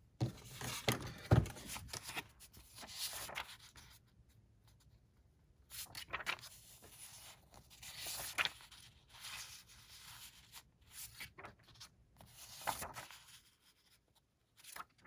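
Sheets of vellum and craft paper rustling and sliding as they are handled and leafed through, in short intermittent bursts with quiet gaps, with a soft thump about a second in.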